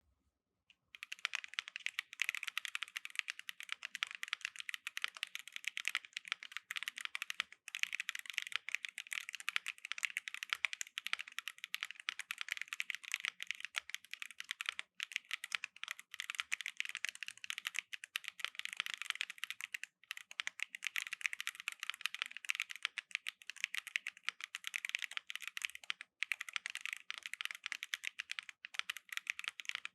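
Fast continuous typing on a mechanical keyboard with Keygeek Raw linear switches in a gasket-mounted Monsgeek M1 V2 with a polycarbonate plate, the keystrokes clacking as they bottom out. The typing starts about a second in and runs on with a few short pauses.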